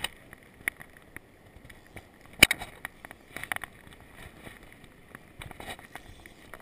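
Handling noise on a chest-mounted camera during fly casting: irregular clicks and rustles, with one sharp knock about two and a half seconds in.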